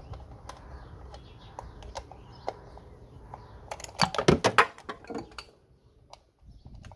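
Light clicks and taps of plastic and metal as an ignition coil pack, its plug connector and a screwdriver are handled on an engine's valve cover. A burst of louder clattering clicks comes about four seconds in.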